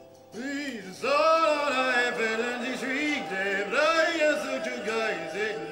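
A man's voice chanting wordlessly in gliding, rising-and-falling phrases, coming in about a third of a second in and growing louder after a second. Faint held tones of the live ambient music sound beneath it.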